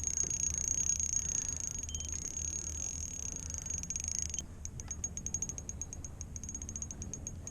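Fishing reel drag buzzing in a steady high whine as a heavy fish, possibly a catfish, pulls line, then changing to rapid even clicking, about eight a second, from about four and a half seconds in.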